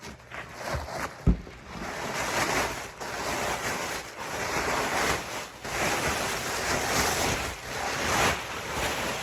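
Styrofoam packing and cardboard box rustling and scraping in repeated swells as a boxed ceiling fan motor is worked out of its packing, with a single thump about a second in.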